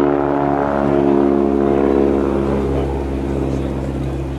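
North American Harvard trainer flying past, its radial engine and propeller giving a steady multi-toned drone that slowly fades as it moves away.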